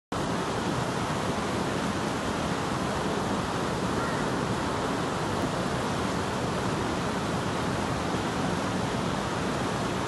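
Steady rushing of a mountain stream flowing over rocks, an even unbroken wash of water noise.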